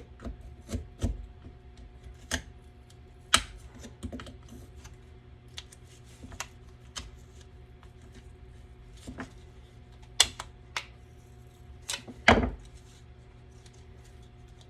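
Irregular clicks and knocks of a hand tool prying at the press-fit plastic fan wheel on a cheap inflator/deflator's motor. Sharper knocks come about 3 s, 10 s and 12 s in.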